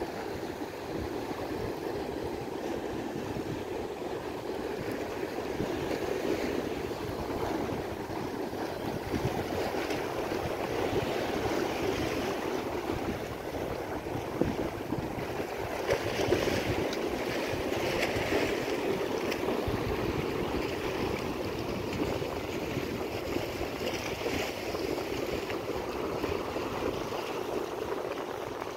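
Steady wash of sea surf, with a couple of brief knocks about halfway through.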